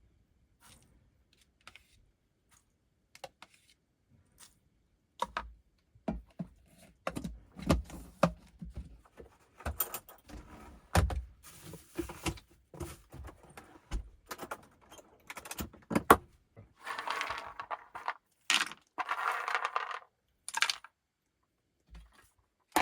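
A run of clicks, knocks and light metallic clinks of small hard objects being handled, sparse at first and busier from about five seconds in, with two short hissing, scraping sounds near the end.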